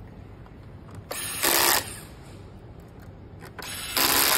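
Handheld electric screwdriver running on screws in a projector's plastic housing, in two short runs about two and a half seconds apart. Each run starts softer and turns louder for its last moment.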